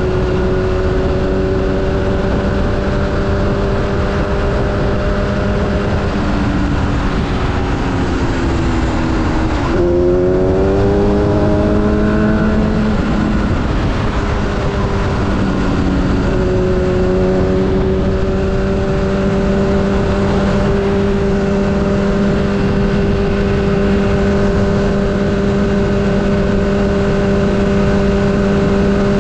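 Sport motorcycle's engine at freeway cruise under heavy wind and road rush. About six seconds in the engine note sags, then near ten seconds it jumps and climbs as the bike accelerates, settling back to a steady cruise note from about sixteen seconds.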